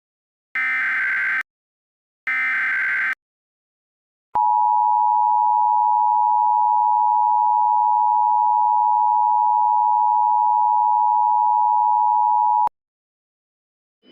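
Emergency Alert System signal: two short bursts of the screechy SAME digital header, each under a second, then after a pause the EAS attention signal, a steady two-tone alert sounding for about eight seconds before cutting off abruptly.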